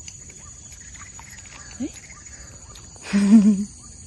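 Steady high-pitched insect buzz with faint scattered bird chirps. A short rising call comes just under two seconds in, and a louder, brief wavering call about three seconds in.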